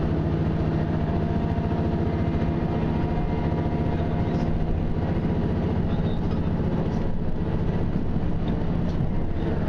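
Diesel railcar running under way, heard from inside the passenger cabin: a steady low engine drone with track noise, and a few faint rail clicks near the end.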